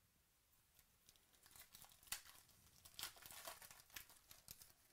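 Foil wrapper of a 2017 Panini Chronicles baseball card pack being torn open by hand: soft crinkling and tearing with several sharper crackles, starting about a second in.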